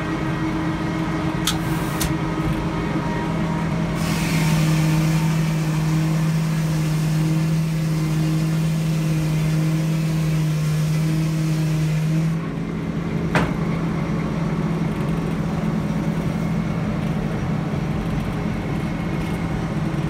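An old Detroit Diesel two-stroke engine powering a sawmill runs steadily. From about four seconds in to about twelve, the saw cuts through an oak log: the engine pulls harder and a loud hiss of sawing rises over it. Then the cut ends and the engine runs on, with a sharp knock shortly after.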